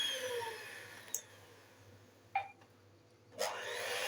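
Electric mixer beating cake batter at low speed: its whine winds down within the first second, two light knocks follow, and it starts up again with a rising whine about three and a half seconds in.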